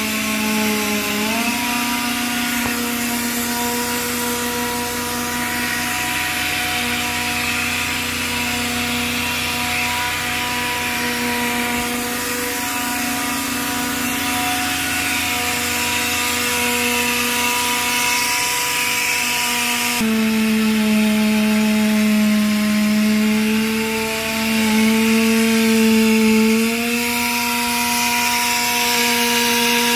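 Portable in-situ crankshaft grinding machine grinding a crankpin of a Wärtsilä 16V32LN engine: its drive motor runs with a steady whine over a hiss of grinding. The pitch dips briefly about a second in, shifts abruptly about two-thirds through, and rises again a few seconds before the end.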